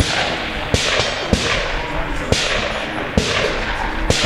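Gunshots on a firing range: about six sharp single cracks, spaced roughly a second or less apart, each followed by a fading echo, over a steady background.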